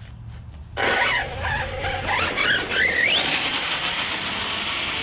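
Brushless electric motor of a 1/6-scale Redcat Shredder RC truck, a TP Power motor on a Mamba ESC, starting under full throttle about a second in. Its high whine rises and falls several times as the throttle is worked, then gives way to a steady loud rush as the truck runs at speed.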